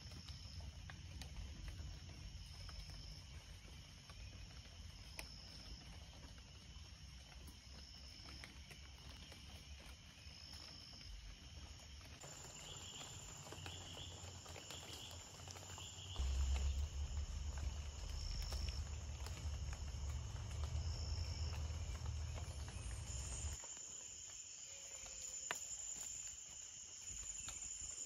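Tropical rainforest ambience: insects chirring in steady high-pitched tones, with short high notes repeated every couple of seconds. A low rumble runs underneath, loudest past the middle, and cuts off sharply near the end.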